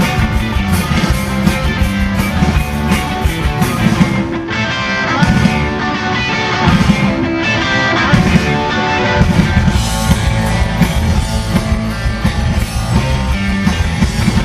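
Live rock band playing an instrumental passage without vocals: electric guitar to the fore over bass guitar and drums.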